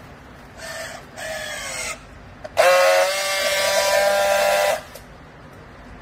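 Battery-powered handheld strapping tool on a plastic bale strap: two short rising motor whines as it tensions the strap, then a louder steady buzz for about two seconds as it friction-welds the strap's seal.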